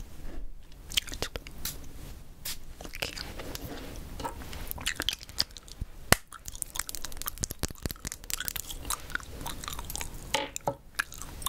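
Gum chewed close to the microphone: irregular wet smacks and small clicks of the mouth, with one sharper click about six seconds in.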